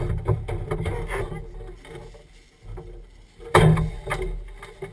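Jeep driving a muddy trail, its engine running with a low rumble under a run of knocks and clatter, and one loud thump about three and a half seconds in.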